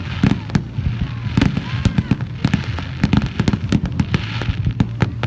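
Fireworks going off in quick succession: many sharp bangs and pops at irregular spacing, several a second, with patches of crackling between them.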